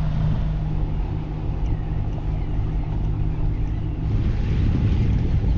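A catamaran's engines running steadily under way, a low hum with a steady tone. About four seconds in, the tone fades back and a rushing wind noise on the microphone grows louder.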